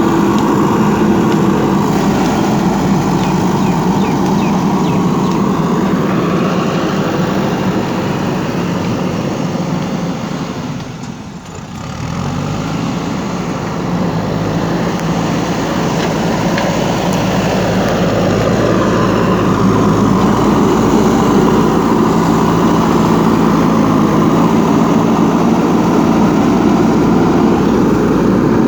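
JCB 3DX backhoe loader's diesel engine running steadily while the machine works. About eleven seconds in the sound briefly drops away, then returns with a steadier, lower engine note.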